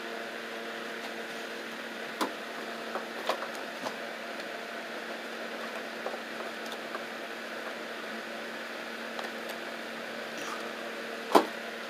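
Electric room fan running with a steady hum. A few light knocks sound over it as things are handled, with one sharper knock shortly before the end.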